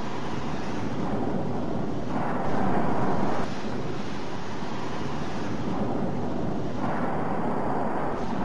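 Sea waves breaking and washing over rocks, a steady rushing noise with wind buffeting the microphone, in an edited, exaggerated soundtrack. About two and a half seconds in, a louder stretch of surf starts and stops abruptly after about a second.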